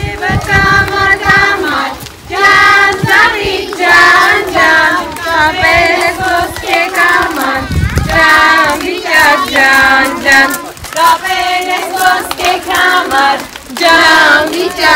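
A group of children singing a song together in chorus, with women's voices joining in.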